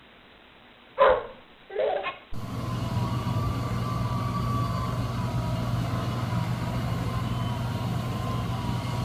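A dog barks loudly twice, about a second apart. Then a steady low hum starts suddenly and runs on, with a thin wavering whine above it.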